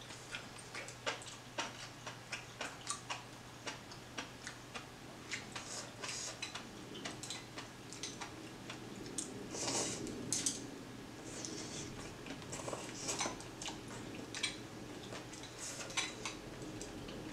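Chopsticks clicking and tapping against a stainless steel pot of noodle soup, a run of light, irregular clicks one or two a second, with a short, louder, noisier stretch about ten seconds in.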